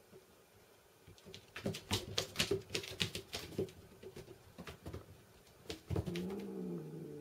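A kitten's paws and claws skittering and tapping on a vinyl floor as it spins after a laser dot, an irregular flurry of quick clicks over a few seconds. Near the end comes a thump, then a low, drawn-out tone that falls slightly and lasts about two seconds.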